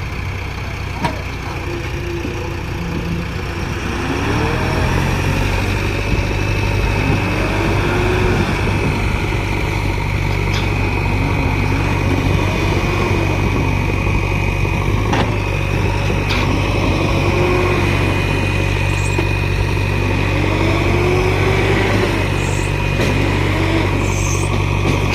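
Heavy diesel engine of a construction machine running, working harder and louder from about four seconds in, with a steady high whine over it and repeated short rises and falls in pitch.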